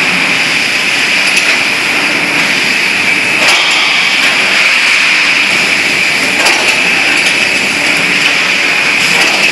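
Factory noise of hydraulic riveting machines at work on steel frame parts: a loud, steady machine noise with a few sharp knocks, the clearest about three and a half and six and a half seconds in.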